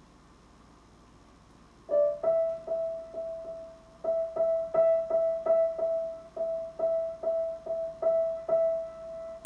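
Piano played on one high key, struck over and over at about three times a second, after about two seconds of near silence.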